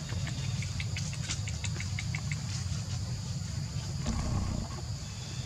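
Outdoor ambience: a steady, fluttering low rumble and a steady high hum, with a quick run of short high ticks between about one and two and a half seconds in, and a brief soft sound about four seconds in.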